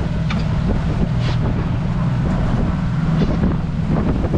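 Motorboat engine running steadily with the boat underway, a constant low hum, with wind buffeting the microphone.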